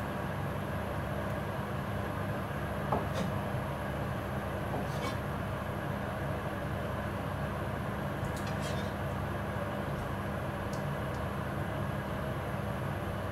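A kitchen knife slicing konjac on a plastic cutting board, heard as a few soft, widely spaced taps, the clearest about three seconds in. Under them runs a steady low hum.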